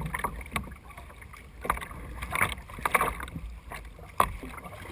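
Kayak paddle blades dipping into the water, a series of irregular splashes and drips as the boat is paddled along.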